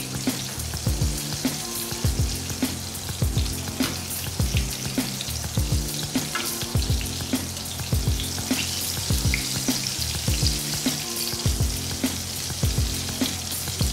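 Breaded chicken pieces deep-frying in hot oil, a steady sizzle throughout, under background music with a steady beat and bass line.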